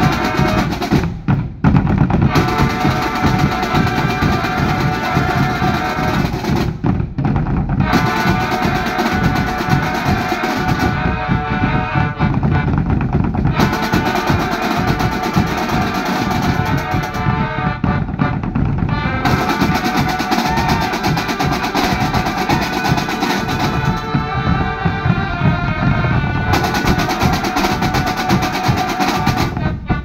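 Marching drum band playing, with snare and bass drums beating under a melody of held notes.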